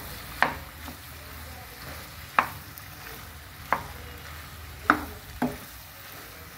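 Wooden spatula stirring boiled macaroni through a masala gravy in a frying pan, knocking sharply against the pan about six times, roughly a second apart, over a faint steady sizzle.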